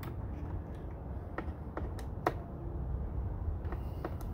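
A handful of sharp plastic clicks and taps as the Ford F-150's side-mirror glass backing plate and mirror housing are handled and fitted together, over a steady low rumble.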